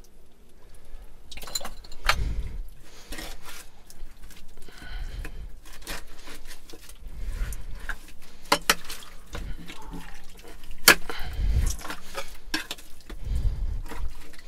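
Scattered sharp clinks and knocks with scraping between them and a few low thumps: digging in wet privy fill and handling old glass bottles as they come out.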